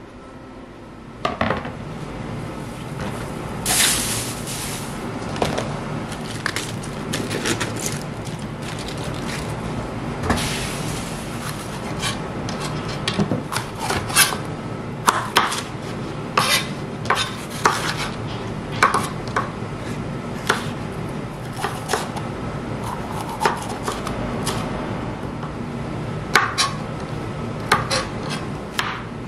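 Kitchen knife chopping bell peppers and then garlic cloves on a plastic cutting board: irregular sharp knocks of the blade against the board over a steady low hum.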